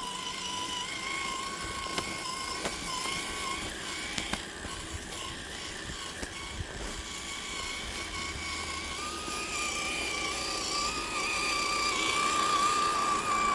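Axial SCX10 III RC crawler's electric motor and gear drivetrain whining steadily as it drives, the pitch rising a little in the second half, with scattered short clicks.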